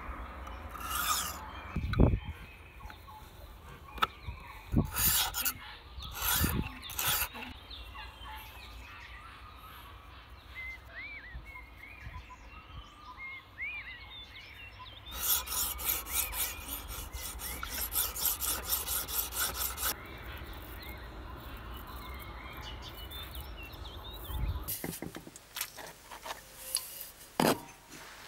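Sharpening stone of a guided knife sharpener rasping across the steel blade of a hawkbill pruning knife. It starts with a few separate strokes, and about halfway in comes a fast run of even back-and-forth strokes, roughly six a second, lasting about five seconds. Birds chirp faintly in the quieter stretches.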